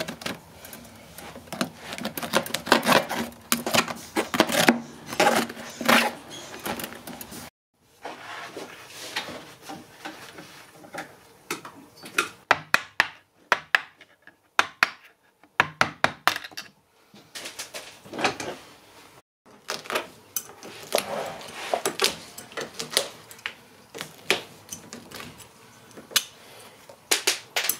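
Upholstery hand tools working on an old armchair's wooden frame and tacks: an irregular run of sharp taps, knocks and clicks, broken by a few brief silences.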